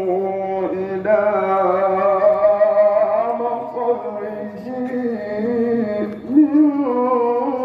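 A man chanting a Maulid recitation in a melismatic style, holding long notes that bend and waver in pitch, with short breaks for breath about a second in and near the end.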